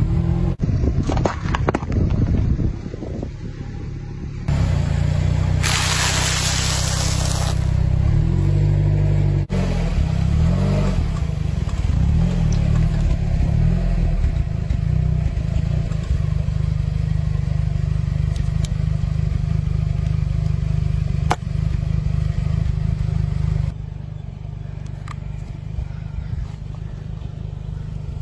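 A car engine runs with a low, steady rumble as the tyre rolls slowly over objects. There is crunching and crackling as plastic tape rolls are crushed near the start, a loud hiss lasting about two seconds a few seconds in, and a couple of sharp cracks later on.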